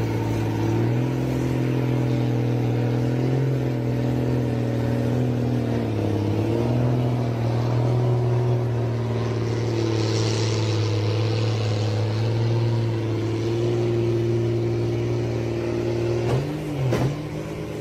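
Engines of a wheeled log skidder and a log-laden truck running steadily under load as the skidder tows the truck up a steep dirt slope. The engine note dips briefly about six seconds in and again near the end.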